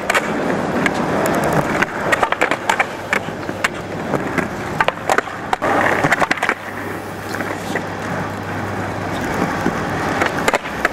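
Skateboard wheels rolling on smooth concrete, with clusters of sharp clacks as the board is popped and landed in flatground tricks.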